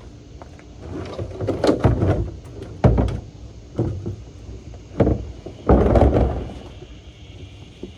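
Plastic outdoor trash bins being handled during cleaning: a handful of loud hollow thuds and bangs, with scraping between them.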